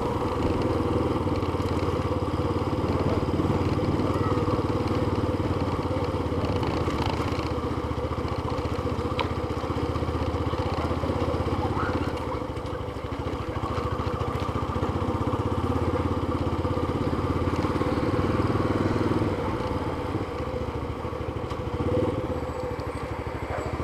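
Yamaha FZ25 motorcycle's single-cylinder engine running steadily while riding. The level dips briefly about halfway through and again near the end.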